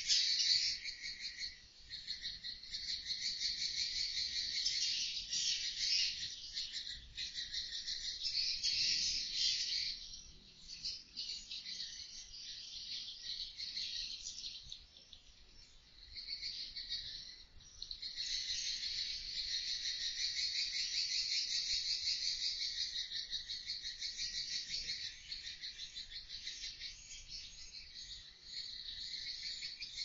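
Many edible-nest swiftlets roosting together, a dense high twittering chatter that keeps up without a break and thins out for a few seconds in the middle.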